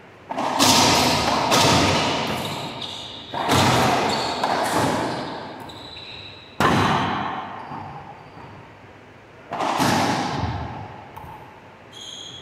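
Racquetball rally: a run of sharp cracks as the hollow rubber ball is struck by the racquets and slams off the court walls, each hit echoing for a second or more. Between the hits come short, high squeaks from sneakers on the hardwood floor.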